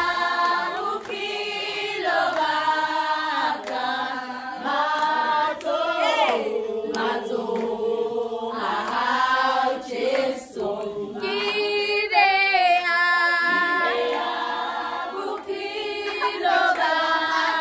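A group of voices singing together, unaccompanied, holding long notes that slide from one pitch to the next.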